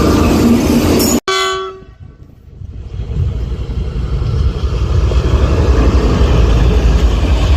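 Indian Railways train: a loud rumble cuts off abruptly about a second in, a short horn blast of about half a second follows, then the low rumble of a train drawing near grows steadily louder.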